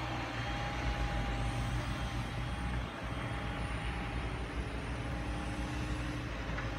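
Caterpillar 320 hydraulic excavator running, its diesel engine a steady low rumble with a steady thin whine over it as the arm and bucket move.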